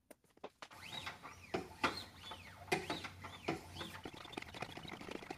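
A Wicked Edge Gen 3 Pro sharpener's abrasive arms being stroked along a folding knife's edge, each stroke a short scrape rising and falling in pitch, about one or two a second, while the secondary bevel is polished toward a mirror finish. A few faint clicks of handling come before the strokes begin.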